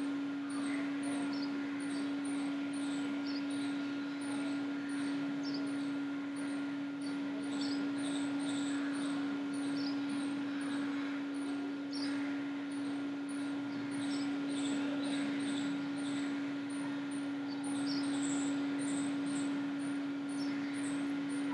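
A steady low hum over a constant hiss, with faint high chirps repeating two or three times a second.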